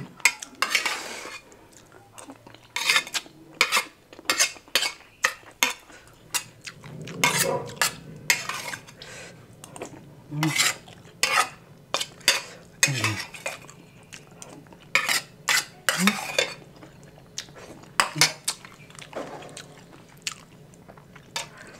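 Metal spoon clinking and scraping against a plate during eating, in many short, irregular sharp clicks.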